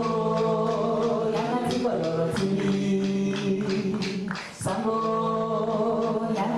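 A group of voices singing traditional Central African music together in long held notes, with sharp percussion strikes along the way. The singing drops away briefly about four and a half seconds in, then starts again.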